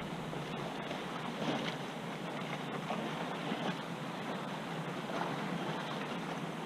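Choppy river water lapping and splashing against the hull of a paddle kayak, with wind noise on the microphone. The sound is a steady wash with small irregular splashes.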